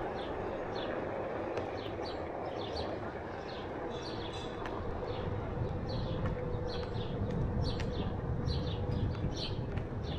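Small birds chirping in many quick, short calls over a steady low rumble. A faint steady hum sits underneath from about four to seven seconds in.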